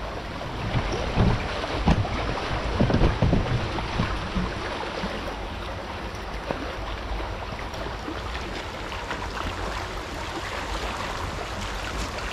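Steady rush of river water with wind buffeting the microphone, and several louder low thumps about one to four seconds in.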